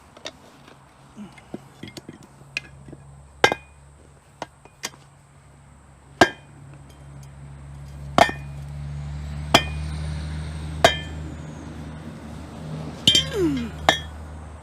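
Metal-on-metal knocks and clinks, about a dozen at irregular spacing, each ringing briefly, with a quick cluster near the end. A low steady hum swells under them in the middle.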